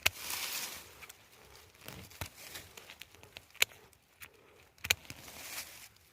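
Rustling and crinkling, loudest in the first second, with a few sharp snaps or clicks scattered through, the strongest about three and a half seconds in.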